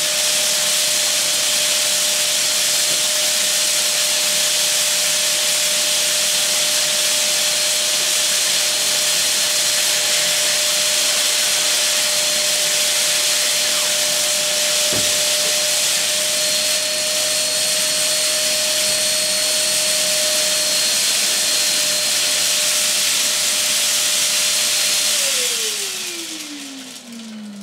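Dirt Devil Power Reach Multi-Cyclonic bagless canister vacuum running steadily, with a constant motor whine over the rush of suction. Near the end it is switched off: the whine falls in pitch as the motor spins down and the noise fades.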